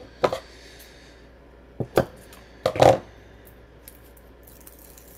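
Scissors and a roll of foam tape handled at a craft table: a handful of sharp clicks and knocks, the loudest cluster about three seconds in.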